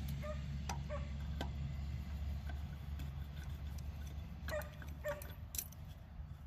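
A dog giving a few short yips and barks over the low rumble of a vehicle engine that slowly fades.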